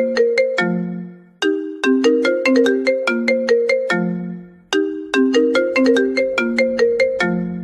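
Ringtone-style tune of quick, bright struck notes. The phrase repeats about every three seconds, each time ending on a longer low note.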